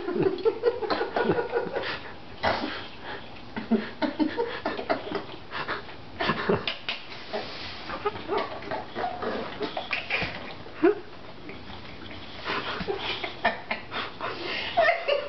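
A dog licking peanut butter off a person's hand: an irregular run of wet smacking and slurping licks.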